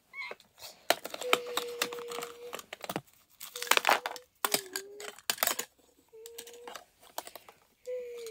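Plastic bag and paper crinkling and crackling as they are handled and stuffed into a toy garbage truck's hopper, with several short, steady hum-like tones between the crackles and a falling one near the end.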